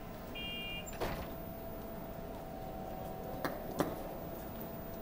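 Underground station platform ambience: a steady electrical hum, the last of a repeating electronic beep just before a second in, then a few sharp knocks, the loudest two close together near the four-second mark.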